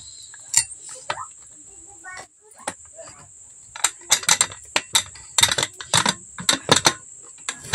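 Aluminium pressure cooker lid being seated and locked by hand: a run of sharp metal clicks and clanks, thickest in the second half. A steady high cricket chirr sounds underneath.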